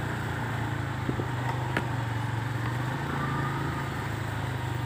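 Motorcycle engine running at a steady, low drone while riding along a road, with a hiss of road and air noise over it.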